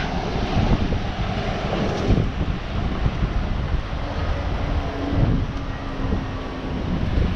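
Wind buffeting the microphone in an irregular low rumble, over a steady outdoor noise background with a faint hum partway through.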